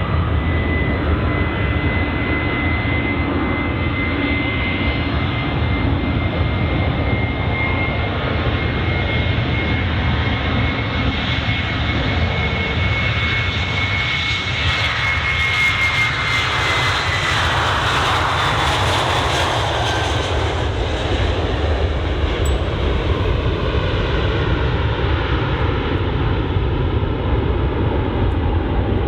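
Boeing 737-800's CFM56-7B jet engines at takeoff power as the airliner passes by. A steady high whine drops in pitch a little over halfway through, as it goes past, over a continuous jet roar.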